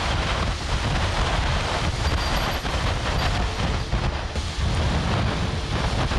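Strong wind gusting over the microphone, a rough, uneven low rumble of buffeting under a broad rushing hiss.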